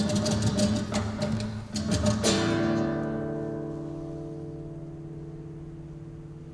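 Acoustic guitar played live: a run of rapid strummed strokes ending in a chord struck about two seconds in, which rings on and slowly fades away.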